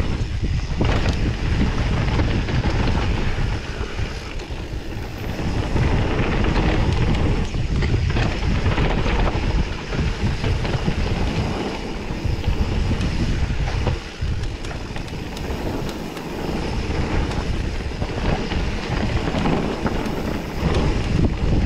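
Wind buffeting the microphone of an action camera on a mountain bike riding down a dirt trail, with the tyres rolling over dirt and scattered knocks and rattles from bumps.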